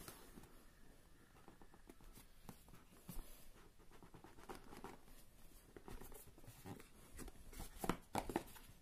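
Faint rubbing and scraping of a cardboard box being handled and its lid slid open, with a few light taps near the end.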